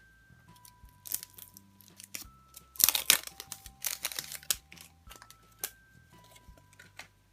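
Wrapper of a surprise egg crinkling and tearing as it is pulled open by hand. The loudest bursts come about three and four seconds in, over soft background music.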